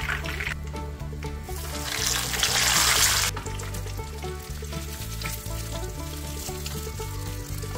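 Whole tilapia sizzling as it deep-fries in hot oil in a nonstick pan. The sizzle surges loudly for about a second and a half, about two seconds in, as the fish is turned with tongs and set back into the oil, then settles to a lower, steady frying sizzle. Background music plays underneath.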